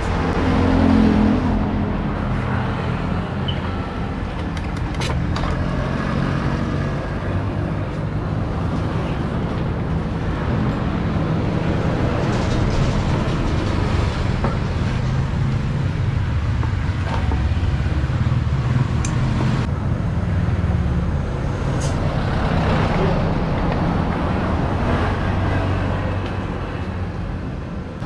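Steady rumble of motor vehicles running and passing on the road outside, their engine hum shifting as they come and go, with a few sharp clicks of hand tools on metal.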